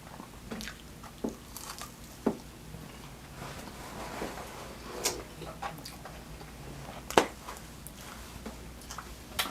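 Close-miked eating sounds: chewing and wet mouth noises, with scattered sharp clicks and smacks, the loudest about seven seconds in.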